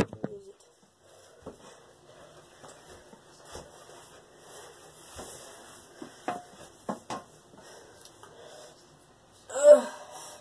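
A person's faint breathing with a few small clicks and handling knocks, then a short, loud vocal sound with a wavering pitch near the end.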